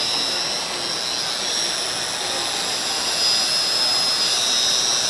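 FEIN BF 10-280E belt file running, its narrow abrasive belt grinding a weld seam on a stainless steel tube joint: a steady high-pitched whine over a grinding hiss.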